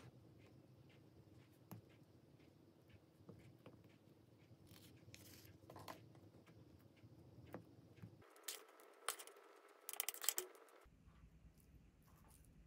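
Faint scraping of a wooden spoon spreading mayonnaise and cream cheese over slices of bread. Near the end, a cluster of louder scrapes and rustles as a spoon scoops sliced green onions onto the bread.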